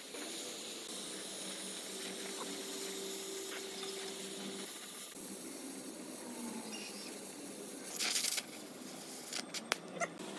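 Stick (arc) welding on a thin sheet-metal tank: the arc crackles and hisses steadily. There is a louder burst of crackle about eight seconds in and a few sharp clicks near the end.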